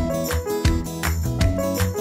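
Upbeat background music with a steady beat and plucked-string notes.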